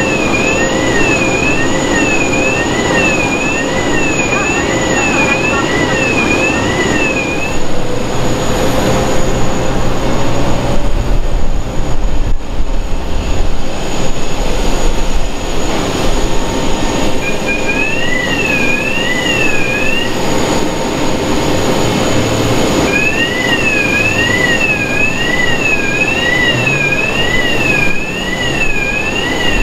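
Jet bridge's two-tone warbling warning alarm, rising and falling about once a second, the signal that the boarding bridge is moving. It stops about a quarter of the way in, sounds briefly again past the middle, and returns near the end, over a steady apron drone.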